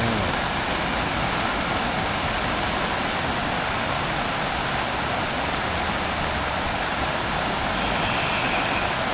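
Steady rush of heavy rain and floodwater running through a street, with a low hum from cars stuck in the flood.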